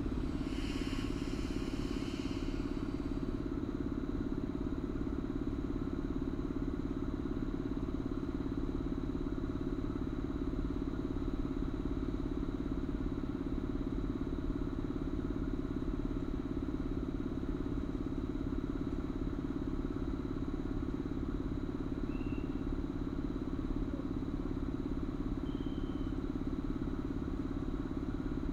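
EU07 electric locomotive standing at a halt with its on-board auxiliary machinery running: a steady, even hum. A short hiss fades out in the first few seconds.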